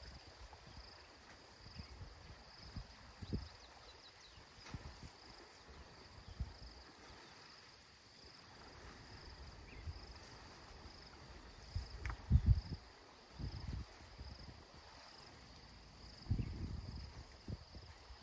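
Insects chirping in a steady, evenly pulsing high drone, with a few short low thumps, the loudest about twelve seconds in.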